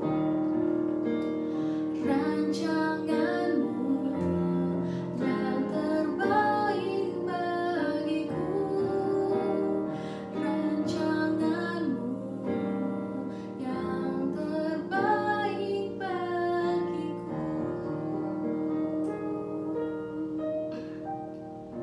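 A woman singing an Indonesian worship song, accompanied by an electronic keyboard playing sustained chords on a piano-like voice.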